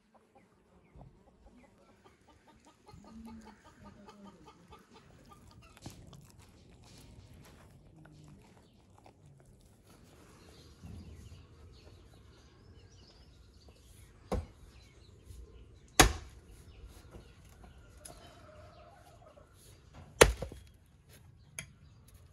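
Chickens clucking, then an axe chopping firewood on a wooden block in the second half: four sharp blows, the second and third loudest, the last one light.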